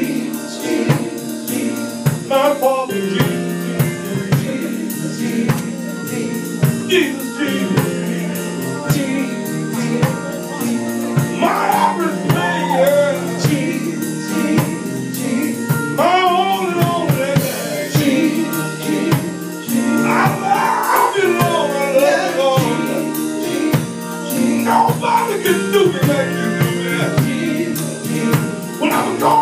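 Live gospel praise music: a drum kit keeps a steady beat under sustained held chords, while a singer's voice slides up and down over the band at intervals.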